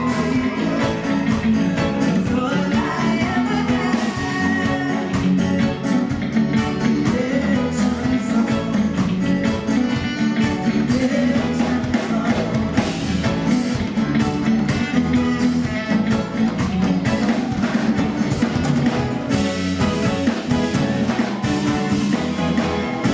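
Live afro-soul band playing a song, with guitar, bass and drum kit under a woman's lead vocal.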